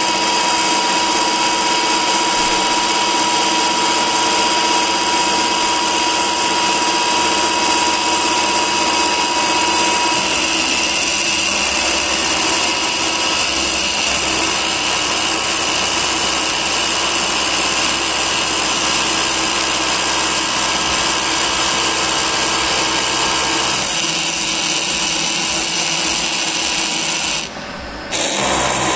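Huron NU3 milling machine face-milling S355 steel with a 40 mm DormerPramet TNGX16 indexable face mill, taking an 8 mm deep cut at 650 mm/min feed: a loud, steady cutting noise with several held tones from the cutter and spindle. The level drops briefly about a second before the end.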